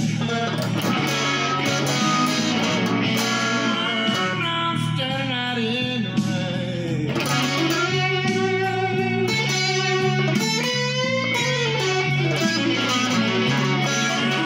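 Electric guitar playing a slow blues lead with string bends and wide vibrato, over a sustained low accompaniment that shifts chord now and then.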